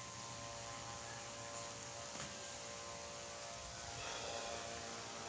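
Homemade 750-watt 12-volt inverter running under load, its centre-tapped transformer giving a steady low hum with many evenly spaced overtones: the sign that the inverter is switched on and powering its lamps.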